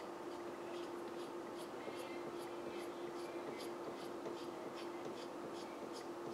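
A small hand tool scraping a green carving-wax ring blank in quick repeated strokes, about two or three a second, over a steady low hum.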